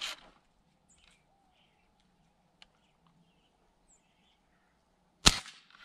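Crosman 760 Pumpmaster BB air rifle fired once near the end: a single sharp crack. Before it, faint chirps of small birds and a brief rustle at the start.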